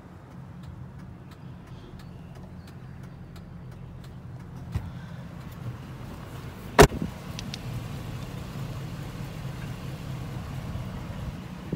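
2004 GMC Yukon Denali's 6.0-litre V8 idling steadily, with a car door slammed shut about seven seconds in.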